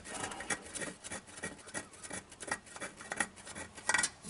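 Faint, irregular scraping and clicking of hands working the steel rear differential cover loose from the axle housing.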